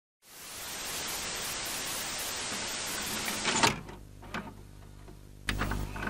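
Intro sound effect: a dense rush of static hiss that cuts off with a sharp click after about three and a half seconds. It gives way to a low electrical hum broken by scattered glitchy clicks, with a louder crackling burst near the end.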